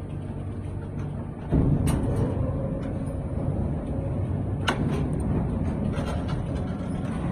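Automatic CNC pipe clamp punching and bending machine running: a steady mechanical hum that gets suddenly louder about a second and a half in, with sharp metallic clanks about two seconds and five seconds in.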